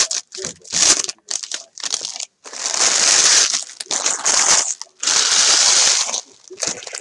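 Trading-card packaging being torn open and crinkled: a few short rustling bursts, then two longer stretches of a second or two each.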